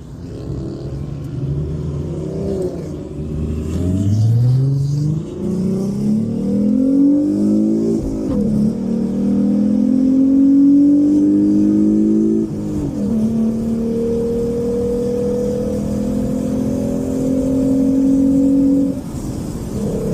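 Car engine accelerating hard through the gears. The pitch climbs and drops back at each of three upshifts, then holds a long, slow climb before easing off near the end.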